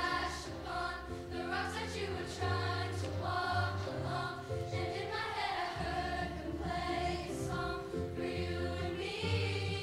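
Middle-school show choir singing together over accompaniment with a low bass line that steps from note to note.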